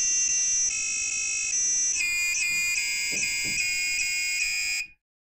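Arduino Nano-driven buzzer of a homemade doorbell playing its second selectable melody, a tune of shrill electronic beep notes that step from pitch to pitch. It cuts off about five seconds in.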